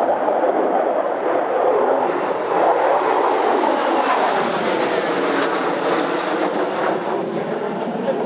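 Jet engine roar of four F-16 fighters flying over in formation, loud and continuous, with a sweeping change in tone through the middle as they pass.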